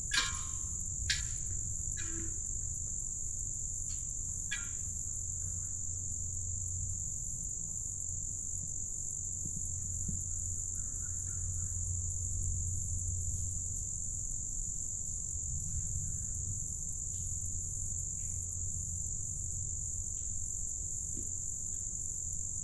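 Steady, high-pitched insect chorus of crickets or katydids, with a low steady rumble underneath and a few short calls in the first few seconds.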